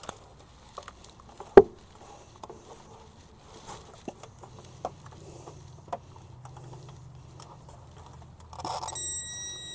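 Small clicks and scrapes of a test probe being worked onto an alternator's B+ terminal under the hood, with one sharp click about a second and a half in. A faint steady hum comes in partway through, and a steady high-pitched beep starts near the end.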